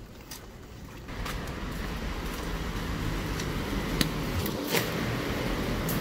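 Steady rushing air noise from a supermarket entrance's ventilation, starting about a second in, with two sharp clicks near the end.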